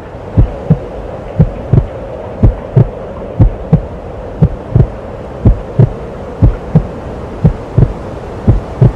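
Heartbeat sound effect: a slow lub-dub of paired low thumps, about one pair a second, over a steady hum.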